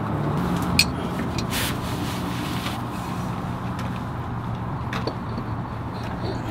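Steady low hum of a running vehicle engine, with a few isolated metallic clicks and a short scrape from wrench work on the drive shaft bolts under the truck.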